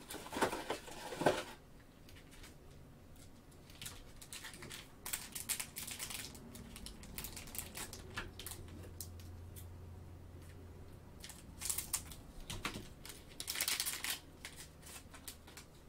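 Plastic cello wrapper of a trading-card pack crinkling and tearing as the pack is pulled from its cardboard box and opened, in scattered rustles and clicks. The busiest handling comes in the first second and a half and again near the end.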